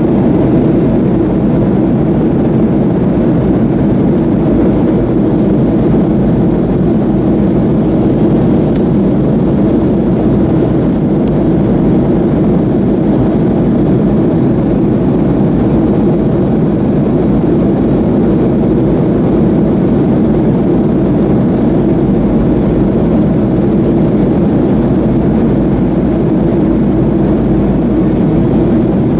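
Steady cabin noise inside a Boeing 737-300 in flight: the low drone of its CFM56 jet engines and the airflow rush, unchanging throughout.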